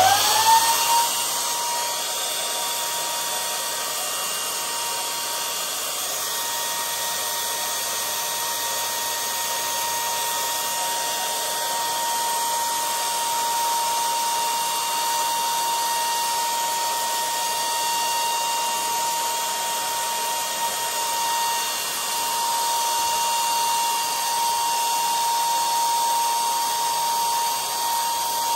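Electric balloon pump switched on, its motor spinning up with a quick rising whine and then running steadily with a high whine over a hiss of air as it inflates a balloon.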